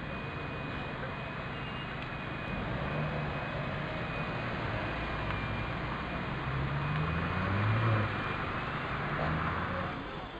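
Road traffic passing close by: car engines and tyre noise, with an engine note rising as a car pulls away, loudest about eight seconds in. A faint steady high whine runs under it.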